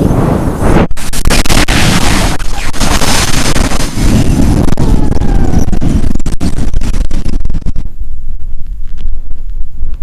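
Very hard wind gusting and buffeting the microphone: a loud, rough rumbling noise. Its hiss drops away near the end, leaving mostly the low rumble.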